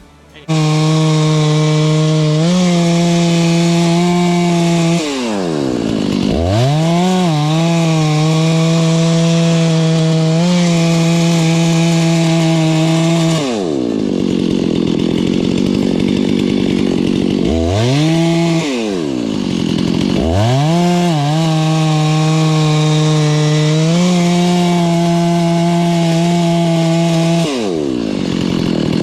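Freshly rebuilt Husqvarna 288XP two-stroke chainsaw running at high revs, its pitch dropping under load and picking back up several times, with a longer lower stretch in the middle, as it cuts into wood.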